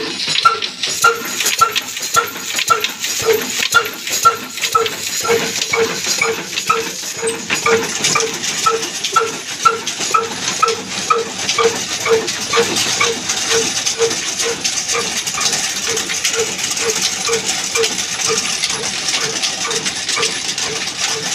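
Old black diesel engine running under load on a belt drive to a wood-cutting machine: a steady beat of short, pitched knocks about three times a second, with clattering from the belts and pulleys.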